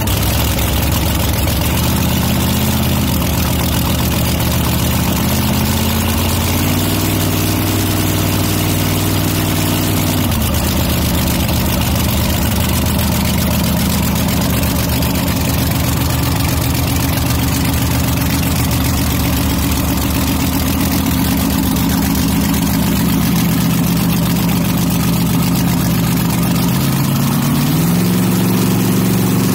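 Supercharged 283-cubic-inch small-block Chevy in a vintage AA altered drag car, running on pump gas through open exhaust. It idles loudly, is revved up and held higher for a few seconds, drops back to idle, and climbs again near the end.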